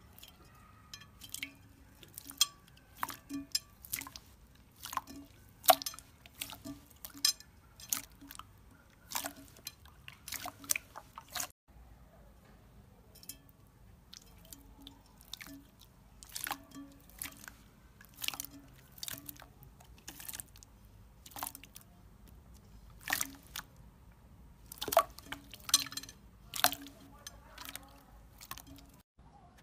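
Clear slime being pressed, poked and kneaded by hand, giving an irregular run of sharp wet pops and clicks.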